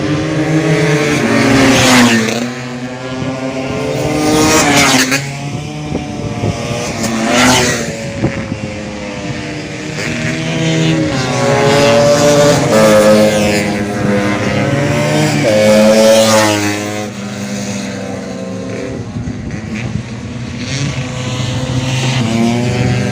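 Race-tuned two-stroke Vespa scooter engine revving hard, its pitch climbing and then dropping sharply several times.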